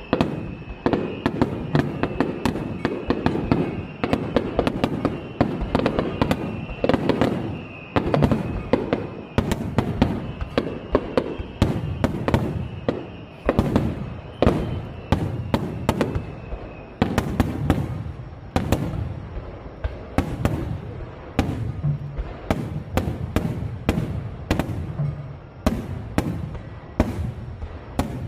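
Extra-large starmine fireworks barrage: a dense, continual run of overlapping booms and crackling shell bursts.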